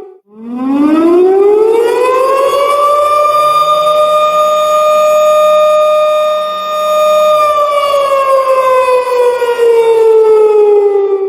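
Civil defense warning siren wailing in one long cycle. It rises in pitch over about three seconds, holds a steady tone for about four, then slowly falls before fading out near the end.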